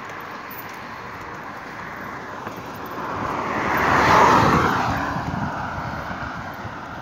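A vehicle passing by, growing louder to its peak about four seconds in, then fading with a falling pitch.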